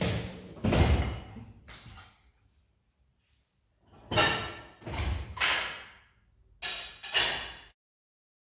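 Kitchenware being cleared off a countertop and put away: a series of knocks and clatters in three or four clusters, with quiet gaps between them.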